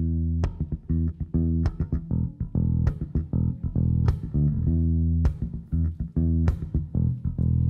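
Electric bass guitar played fingerstyle, a quick run of plucked notes with sharp attacks, several standing out as hard accents that ring on.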